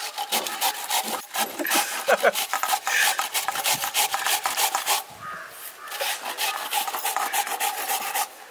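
White radish (mooli) being grated on a stainless steel grater into a steel bowl: quick repeated strokes of the radish against the metal blades, with a brief pause about five seconds in.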